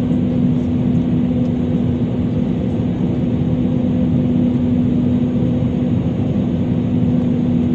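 Cabin noise inside an Airbus A320neo airliner: a steady rush of engine and airflow noise with a steady low hum running through it.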